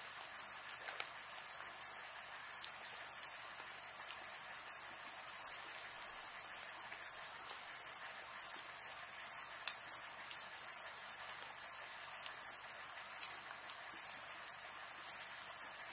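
Night insects calling in rain: a high-pitched chirp repeating about three times every two seconds over a steady high-pitched drone, with the hiss of falling rain beneath.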